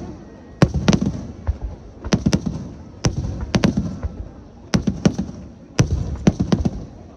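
Aerial fireworks shells bursting in quick clusters of sharp bangs, a new cluster about every second, with a low rumbling echo after each.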